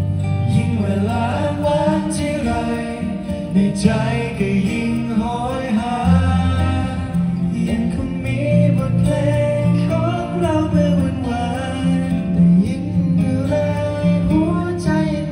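Male voices singing a slow pop ballad into microphones, accompanied by a strummed acoustic guitar, with low bass notes underneath.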